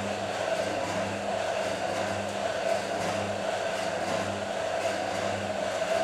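Electric drive motor turning a washing machine body on its pivot: a steady whir with a low hum that swells and fades about once a second.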